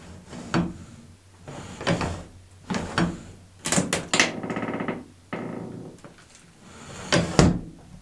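A hidden door latch made of steel tubing being worked: a U-shaped half-inch steel bar slides back and forth in its track of welded one-inch tubing. It makes about six separate metal clunks and scrapes, with a brief ringing rattle around the middle.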